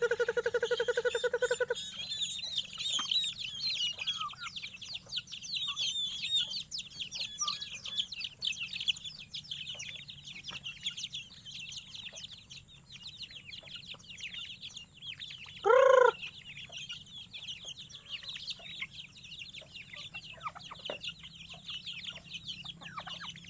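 A flock of chicken chicks and turkey poults peeping continuously in short, high calls. A steady warbling tone stops about two seconds in, and one loud, short call from a bigger bird stands out about sixteen seconds in.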